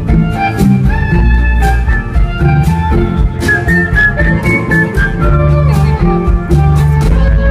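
Live band music: a full-range band with a steady low bass line, a regular drum beat and a high held melody line over them.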